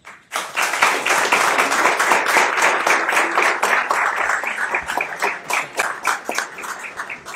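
A small audience applauding. The clapping starts a moment in, stays dense for several seconds and thins to scattered claps near the end.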